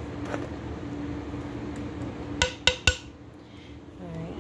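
Three quick ringing clinks of something hard striking a kitchen bowl, a little past halfway, over a steady low hum.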